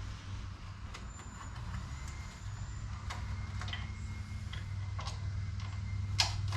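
Steady low mechanical hum, like an engine or motor running, with scattered light clicks and taps of small screws and hand tools being handled.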